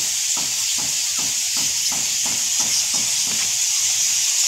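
Steady high-pitched chittering hiss of a huge colony of Geoffroy's rousette fruit bats rising from the cave openings, with soft regular steps, about three a second, underneath.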